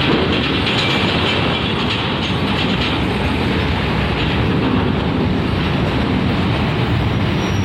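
A bus driving close past with a steady heavy rumble and a clattering rattle.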